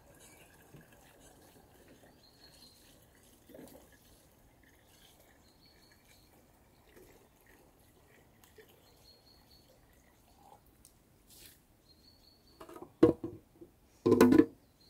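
Water trickling and dripping quietly as it is poured from a plastic jug. Near the end come two loud wooden knocks, about a second apart, as a plank lid is handled.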